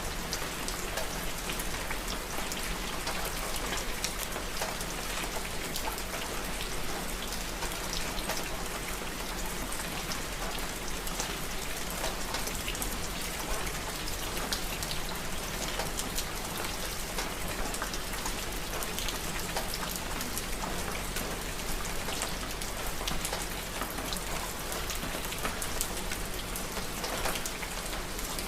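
Steady rain falling, with many individual drops pattering and ticking on a surface.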